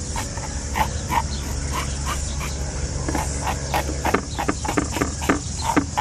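A serrated metal fish scaler scraped along the side of a wild trout, stripping off its scales in quick repeated rasping strokes, several a second.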